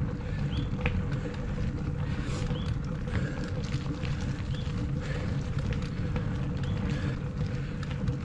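Mountain bike rolling along a forest path: knobby tyres rumbling over concrete and packed dirt, with a steady hum, small clicks and rattles from the bike, and wind noise on the microphone.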